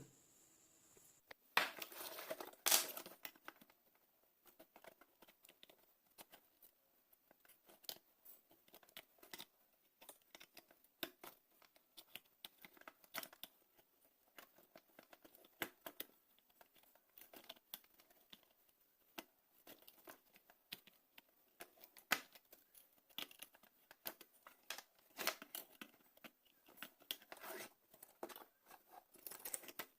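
Faint, irregular clicks, snips and scraping of hand tools working on a battery charger's circuit board as burnt components are taken off it.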